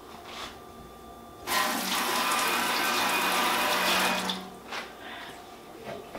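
Water running, starting about one and a half seconds in and stopping about three seconds later.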